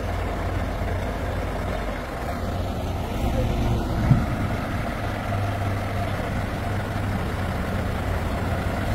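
Truck crane's diesel engine idling steadily, with a single brief thump about four seconds in.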